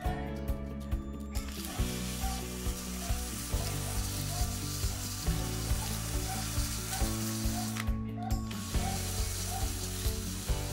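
Cordless drill spinning an engine valve against hand-held sandpaper, a steady rough grinding hiss as the valve face is polished for lapping. It starts a little over a second in and stops briefly near eight seconds. Background music with a steady beat plays throughout.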